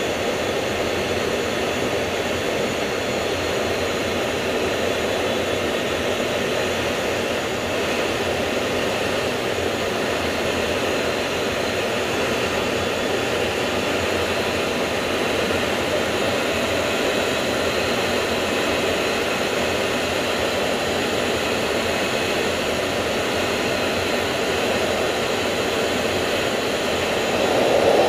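Steady roar of the F/A-18F Super Hornet's twin turbofan jet engines and rushing air, heard inside the cockpit on a carrier landing approach. It grows louder near the end as the jet touches down on the carrier deck.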